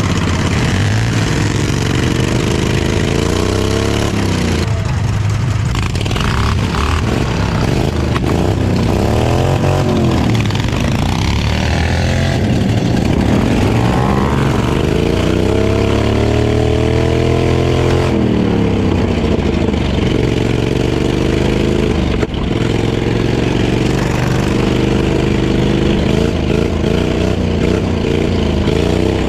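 Off-road lawnmower's engine running hard, its pitch rising and falling again and again as the throttle is opened and eased off.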